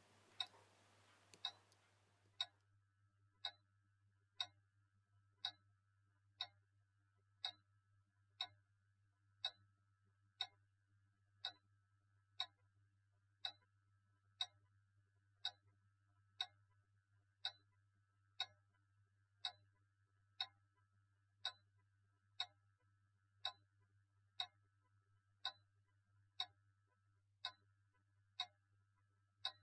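A timepiece ticking steadily, about one tick a second with a slightly uneven tick-tock spacing, over a faint steady low hum.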